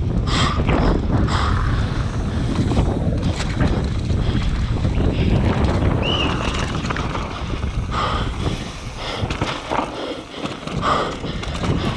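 Wind rushing over the camera microphone and tyres rumbling over a dirt trail on a downhill mountain bike at race speed, with the bike clattering over bumps. There is a brief high squeak about six seconds in, and the noise eases for a couple of seconds near the end.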